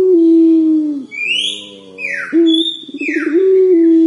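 Young puter pelung (Barbary dove) cooing as it practises its long call. The long held note of one coo falls away about a second in. A second coo starts about two and a half seconds in: a short note, then a rapid stuttering run, then a long held note.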